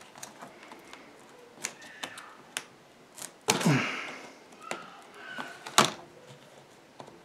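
Small plastic and metal clicks and taps as a replacement MacBook Air battery's connector plug is pushed and worked against its socket on the logic board, which it won't seat in. There is a louder knock about three and a half seconds in and a sharp click near six seconds.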